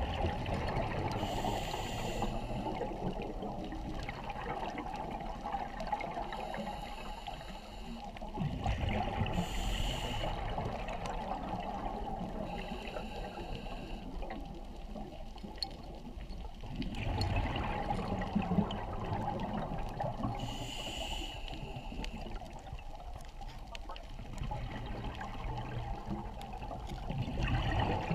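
Scuba diver breathing through a regulator underwater: a short hiss with each breath every few seconds, alternating with the gurgle of exhaled bubbles, over a steady wash of water noise.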